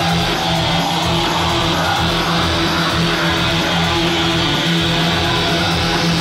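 Loud dance music from a DJ set playing over a club sound system, continuous and steady, with sustained low bass notes.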